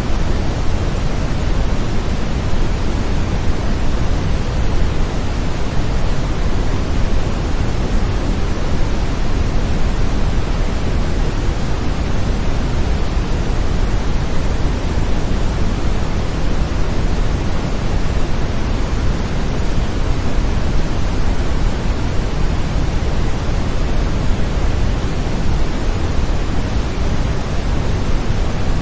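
Steady brown noise: an even, deep hiss, heaviest in the low end and thinning toward the top, with no change throughout.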